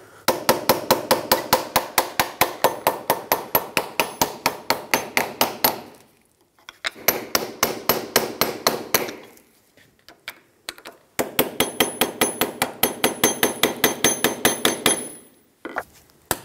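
Hammer tapping a small pry bar against the seized wheel-bearing snap ring in a Toyota 4Runner's front steering knuckle, quick light metal-on-metal blows at about six a second, in three runs with short pauses between. The vibration is meant to break the seized snap ring free.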